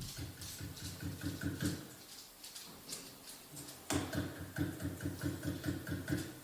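Recorded knocking on a door, played back through a speaker: a run of rapid knocks in the first couple of seconds, then a louder run of rapid knocks starting about four seconds in.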